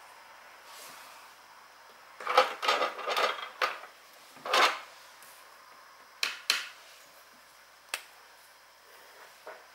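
Stationery handled on a desk while a journal page is made: a quick run of rustles and taps, another single one, then two sharp taps and a crisp click near the eight-second mark.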